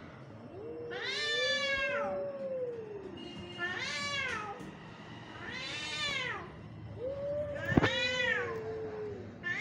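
Two cats yowling at each other in a fight standoff. One gives four long wailing yowls, each rising then falling, about two seconds apart. The other holds a lower, drawn-out moan beneath them. A single sharp click sounds just before eight seconds in.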